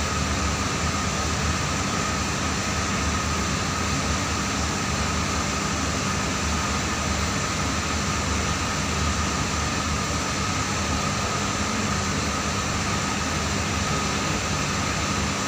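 A steady machine hum with an even hiss and a thin high whine, unchanging throughout.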